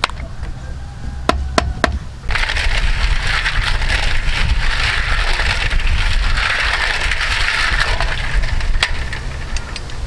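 Snail shells clattering and grinding together in a metal bowl of water as hands scrub and stir them, with water sloshing. A few sharp clicks come first, then a dense continuous rattle starts about two seconds in.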